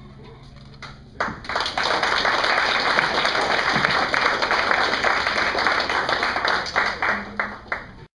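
Audience applauding. It starts about a second in and thins to a few separate claps near the end, where it cuts off abruptly.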